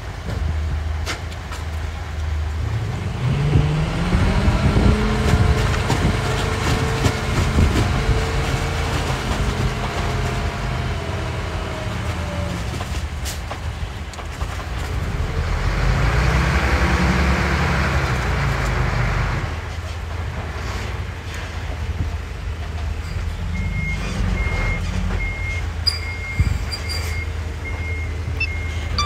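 Dump truck engine running, revving up about three seconds in and again past halfway, with a few seconds of rushing noise along with the second rev. Near the end a reversing alarm starts beeping steadily.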